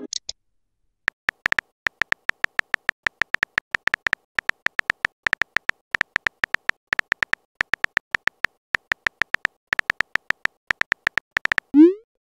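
Typing sound effect of a texting app's on-screen keyboard: short, crisp clicks tapping out letters several times a second, with brief pauses. Near the end a short rising pop sounds as the message is sent.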